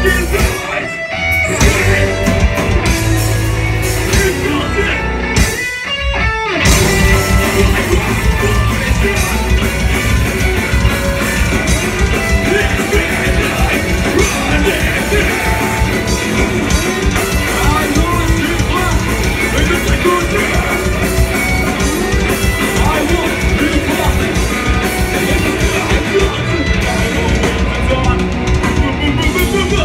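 Metalcore band playing live: distorted electric guitars and a drum kit, with brief stops in the music about a second in and again around six seconds, then playing on without a break. Heard loud and dense, as recorded by a phone in the crowd.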